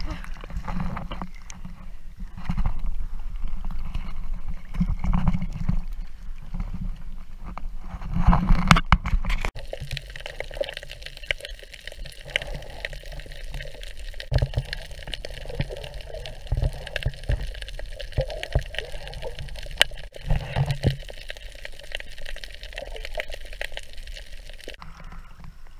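Sea water sloshing and gurgling around a waterproof action camera bobbing at the surface. About nine seconds in the sound changes suddenly to the muffled hush of the camera underwater, with faint scattered crackling.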